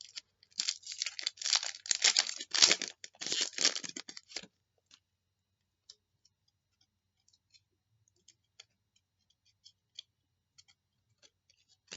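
Rustling and crackling of a trading card pack being handled and opened for about four and a half seconds, then faint scattered clicks as the cards are sorted.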